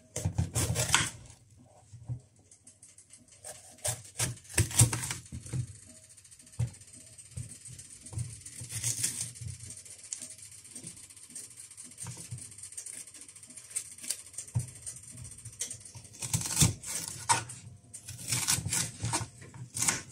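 Kitchen knife cutting a red bell pepper on a wooden cutting board: short bursts of taps and clicks as the blade meets the board, with a quicker run of cuts near the end.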